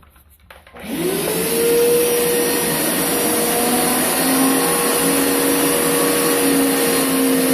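Hoover Power Scrub Deluxe carpet cleaner switched on about a second in, on its rinse setting: the motor spins up with a rising whine, then runs steadily with a loud suction rush and a held hum.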